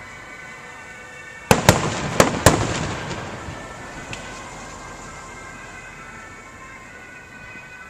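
Aerial fireworks shells bursting: four loud bangs in quick succession about a second and a half in, followed by a rumbling tail that fades over the next second or two.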